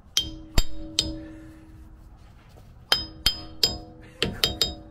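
Soft-face mallet tapping a metal dust cap onto the front wheel hub of a 2001 Toyota 4Runner to seat it. About ten sharp taps come in three quick groups, each leaving a short metallic ring.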